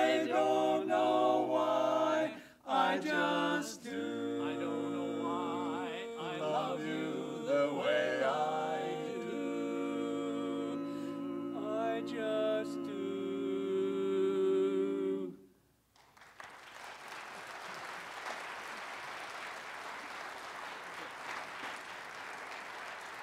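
Four-part male barbershop quartet singing a cappella, ending the song on a long held chord that cuts off about fifteen seconds in. A moment later the audience applauds steadily.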